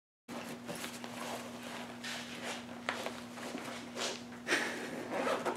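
Shuffling footsteps and rustling handling noise with scattered light clicks, over a faint steady hum.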